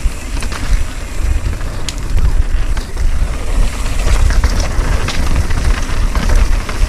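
Mountain bike riding down a rough technical trail: tyres rolling over dirt and rock, with the chain and frame rattling in quick sharp clicks and knocks. A heavy low rumble of wind on the microphone runs under it, getting louder from about two seconds in.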